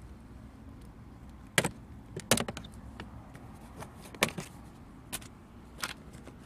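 Sharp clicks and knocks of hard plastic dashboard trim on a 2018 Dacia Logan as the side end panel is handled and pressed by hand: about five of them, the loudest about a second and a half in and a quick cluster just after two seconds.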